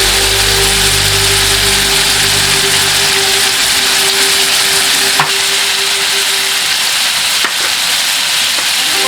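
Food frying in hot oil in a pan: a steady, loud sizzle, with two short sharp knocks about five seconds in and two seconds later.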